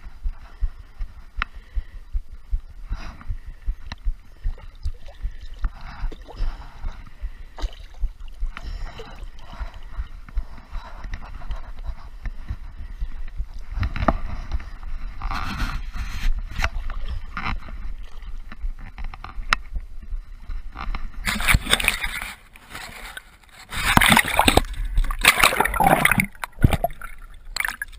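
Water sloshing and gurgling close to the microphone, with a string of dull low knocks, then a louder rushing, splashing stretch over the last several seconds.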